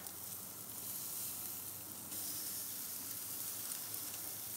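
Boneless pork ribeye chops sizzling on hot gas grill grates as they are lifted with a fork and laid onto a fresh, untouched part of the grill to sear crosshatch marks. A steady hiss that gets a little louder about two seconds in.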